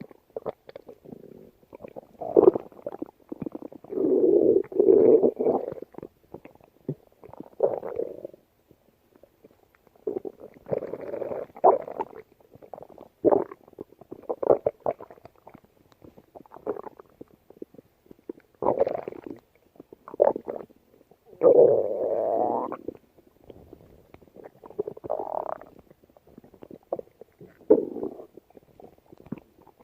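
A hungry human stomach growling and gurgling in irregular bouts. Long rumbles alternate with short pops and gaps.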